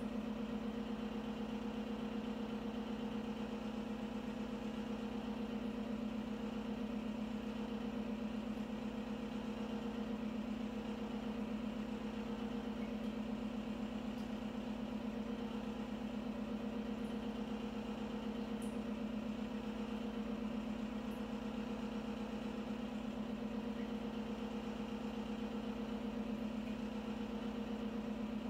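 A steady mechanical hum, even and unchanging, with a low tone and a fainter higher tone above it.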